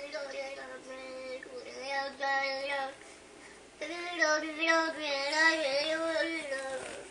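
A young child making drawn-out, sing-song vocal noises: two long, wavering calls with a short pause between them.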